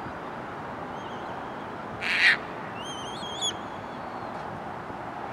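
Birds calling over a steady rushing background: a loud, harsh squawk about two seconds in, then a high, wavering call with clear overtones lasting under a second, and a fainter wavering call earlier.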